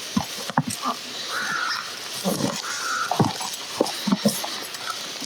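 Short animal calls, two of them held longer about one and a half and two and a half seconds in, among scattered light knocks.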